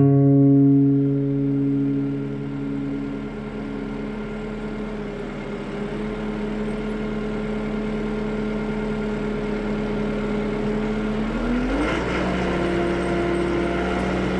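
Yanmar YT359C tractor's diesel engine running steadily, then revving up near the end as the front loader works.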